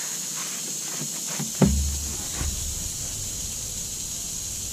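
Knocks and handling noise from work on an asphalt-shingle roof: one sharp thump about a second and a half in, followed by a low rumble and a few softer knocks, over a steady high hiss.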